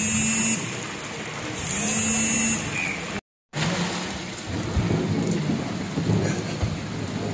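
Heavy rain falling steadily onto standing water and mud walls. Two brief pitched sounds, each about a second long, come near the start and about two seconds in, and the sound cuts out for a moment about three seconds in.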